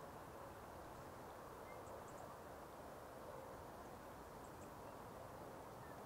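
Near silence: a steady, faint background hiss of outdoor ambience, with a few very faint high ticks.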